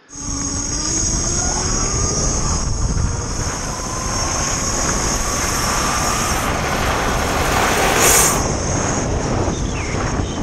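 Electric-converted Yamaha motorcycle riding on a gravel path: a faint electric motor whine climbing slowly in pitch as it gathers speed, under a steady rush of wind and tyre noise, with a brief louder rush about eight seconds in.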